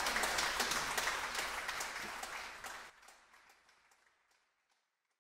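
Concert audience applauding, many hands clapping; it drops sharply about three seconds in and fades out.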